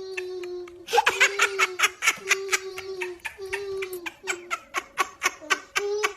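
High-pitched laughter in rapid pulses, with long held, voice-like stretches; it grows louder about a second in.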